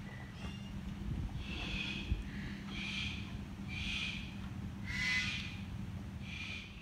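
A bird calling over and over, short high calls about once a second, the loudest about five seconds in, over a low steady hum.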